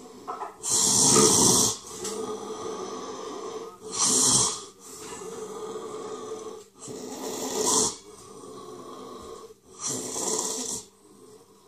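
A person's gasping breaths: four loud, rasping breaths about three seconds apart, with quieter breathing between them.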